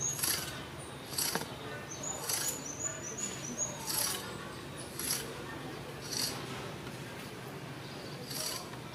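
Dry leaf litter rustling and crackling in short bursts roughly once a second, with a few brief high bird chirps between about two and four seconds in, over a low steady background hum.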